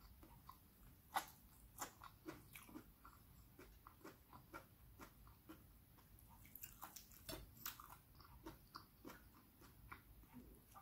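Faint close-up chewing and mouth clicks of someone eating steamed okra and fried fish with rice by hand: soft, irregular clicks and smacks.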